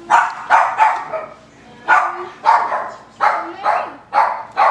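A dog barking repeatedly, the barks coming in quick pairs with short pauses between them.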